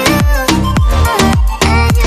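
Background music: an electronic dance-style track with a steady kick-drum beat, about two beats a second, and a melody over it.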